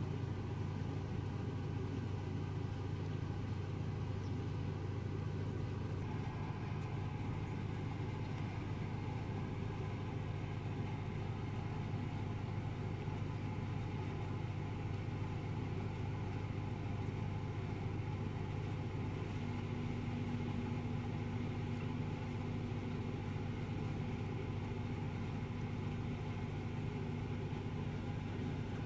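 Steady low mechanical hum at an even level, with a faint higher tone joining about two-thirds of the way through.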